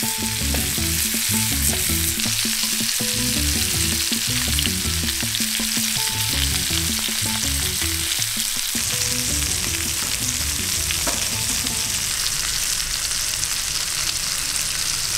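Blackened amberjack fillets sizzling steadily in butter in a stainless steel frying pan while a spoon bastes them with the hot butter.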